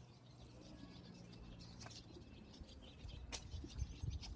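Faint outdoor ambience: a low, uneven wind rumble on the microphone, growing stronger near the end, with a few faint bird chirps.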